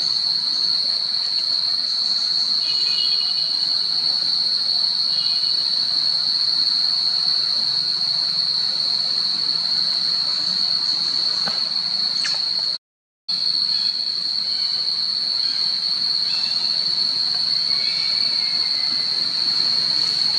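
Steady high-pitched insect drone, a continuous shrill tone over a hiss, with a few faint short chirps a few seconds in; the sound drops out for a moment about two-thirds through.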